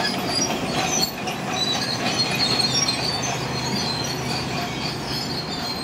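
BEML D155A crawler dozer's Cummins KT1150 six-cylinder diesel running, with high metallic squealing and clanking from its steel tracks.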